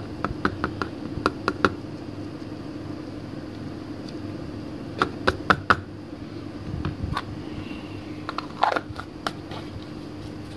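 Light, sharp clicks and taps of small hard objects being handled, in three short clusters, over a steady low hum.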